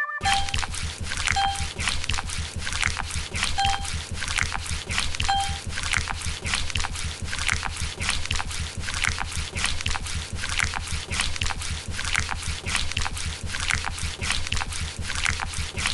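Car-wash water spraying and sloshing in a dense, crackling rush over a steady low rumble. It starts abruptly and cuts off abruptly, with a few short faint beeps in the first several seconds.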